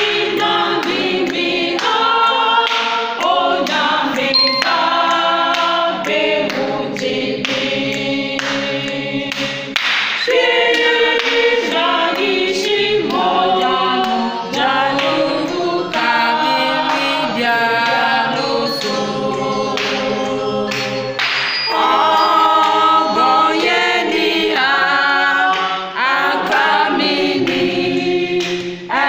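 A church singing band (choir) singing a gospel hymn in several-voice harmony, with no bass instruments audible.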